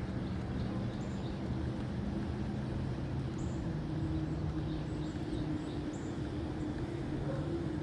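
A steady low engine hum, its pitch dropping slightly about halfway through, with faint high bird chirps over it.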